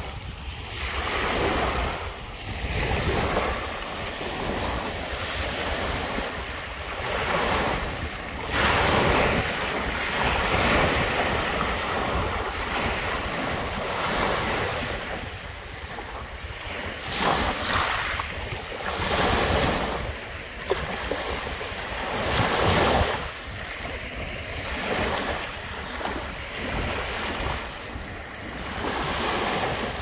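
Small waves breaking and washing up a sand-and-pebble shore, the hiss of the surf swelling and ebbing every few seconds, with wind rumbling on the microphone.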